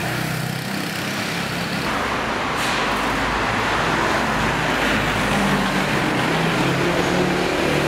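City street traffic noise: a steady wash of passing cars, growing louder from about two seconds in.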